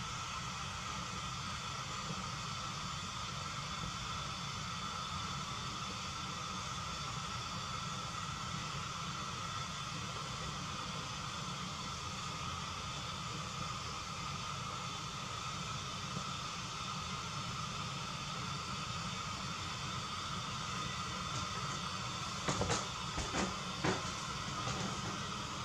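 Gas stove burner hissing steadily under a bare steel wok that is being heated to season it, with a few sharp clicks near the end.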